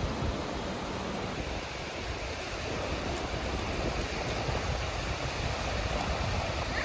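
Sea waves washing onto the beach: a steady rush of surf, with wind rumbling on the microphone.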